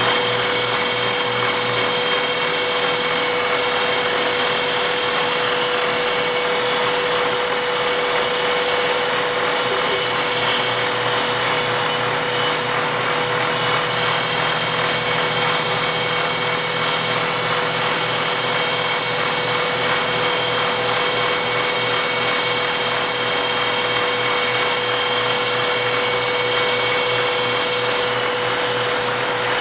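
End mill in a Bridgeport milling machine cutting a radius on the end of a small metal part as a CNC-driven Sherline rotary table turns it: a steady machining noise with a constant whine.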